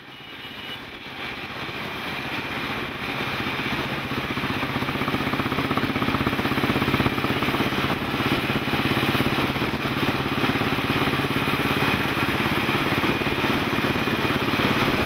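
A motor engine running steadily, fading in over the first few seconds, with a steady low hum.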